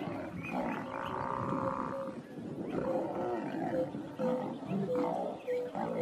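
Lions growling and snarling as they grapple with a Cape buffalo, several overlapping calls with a short call repeating about every half second in the second half.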